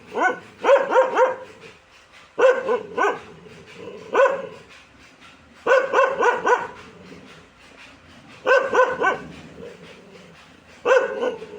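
A dog barking in short bursts of two to four barks, with pauses of a second or two between bursts.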